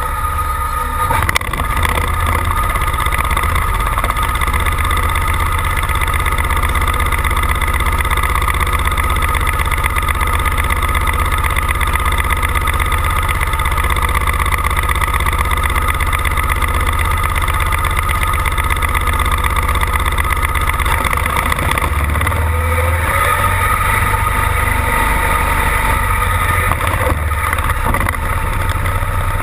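Pulling tractor's engine idling steadily while hitched to the sled at the start line, with a steady high whine over the low running note. A single knock about a second in.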